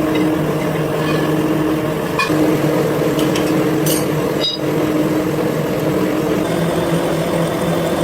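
Factory machinery running with a steady, loud hum, broken by a few short clicks and knocks.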